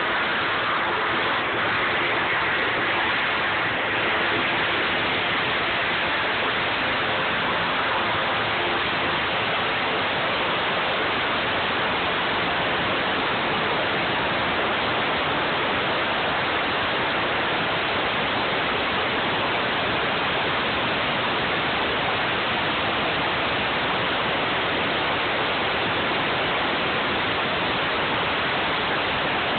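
20,000 psi ultra-high-pressure water jet spraying continuously, a steady loud hiss of water blasting paint off a surface.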